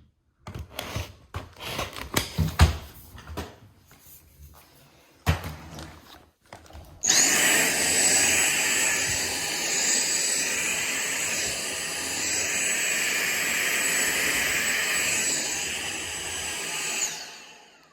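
A few knocks and clicks, then a Dyson V6 cordless stick vacuum is switched on. Its motor runs steadily for about ten seconds with a high whine, then winds down. It sounds a bit blocked, which the owner puts down to a blockage in the machine.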